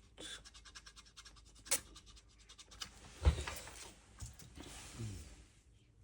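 A quick run of fine scratching strokes, then a single sharp click and, about three seconds in, a dull thump, with faint handling noise after.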